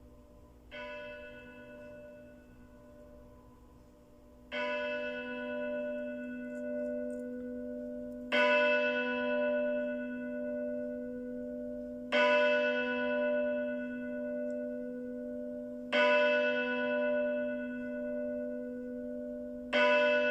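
A bell tolling slowly: six strikes about four seconds apart, the first one softer, each ringing on with a long hum that carries into the next strike.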